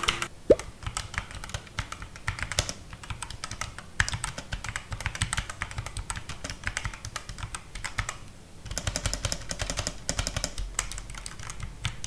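Fast two-handed typing on a Cosmic Byte Pandora CB-GK26 mechanical keyboard with Outemu red linear switches: a dense run of key clacks, with a brief pause a little past two-thirds of the way through.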